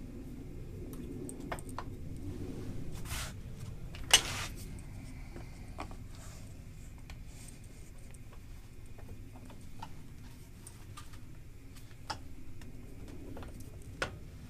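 Steel C-clamp screws being turned by hand on a wooden form-block assembly, with scattered small clicks and knocks of metal and wood. A single sharp knock about four seconds in is the loudest sound. A steady low hum runs underneath.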